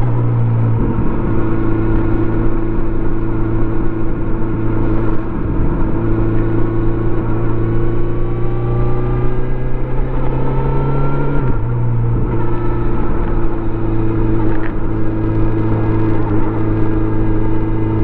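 Stock 2018 Kawasaki Z900RS inline-four engine and exhaust under way: the engine note climbs slowly for about ten seconds, drops suddenly about eleven seconds in, then holds steady.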